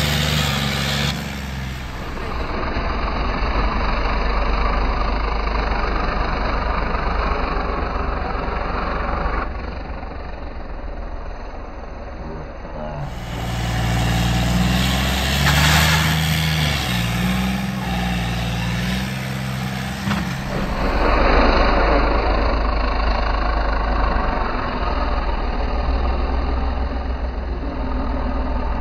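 John Deere 5050D turbo diesel tractor engine running and pulling under load, rising and falling in level through several spliced takes, with the engine note climbing near the end as the tractor lifts its front wheels.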